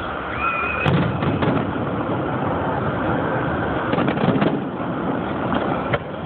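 Aerial firework shells bursting in a series of sharp bangs over a steady background rumble. A short whistle rises and holds just before the first loud bang about a second in, and a cluster of bangs follows around four seconds in.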